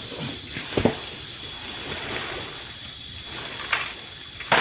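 Cicadas shrilling in one steady, loud, high-pitched tone, with a few knocks.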